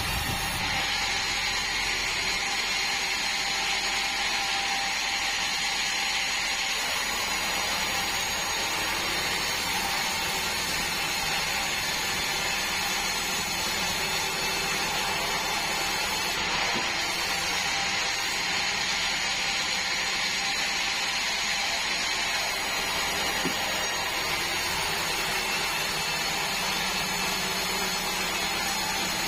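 Band sawmill running steadily: a constant whine over a mechanical hiss, with no break.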